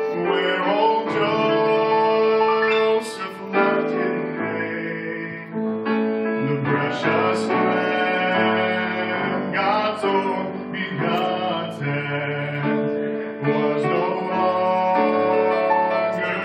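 Gospel song sung by a mixed trio of two men and a woman in harmony over instrumental accompaniment, with long held notes.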